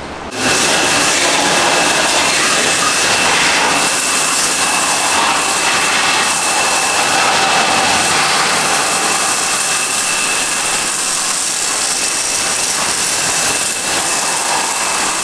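Pressure-washer jet spraying a Royal Enfield Himalayan motorcycle, a loud steady hiss of high-pressure water striking the wheel and engine, with a thin steady whine running through it. It starts about half a second in.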